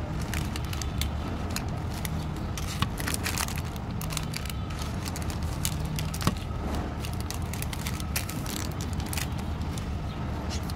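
Plastic and foil candy wrappers crinkling and rustling in the hands, in short irregular crackles with a couple of sharper clicks, over a steady low background hum.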